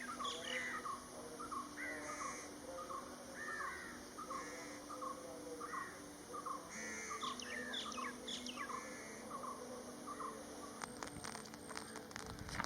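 Birds calling outdoors: a long series of short, repeated calls, one to two a second, over a faint steady background. A cluster of sharp ticks comes in near the end.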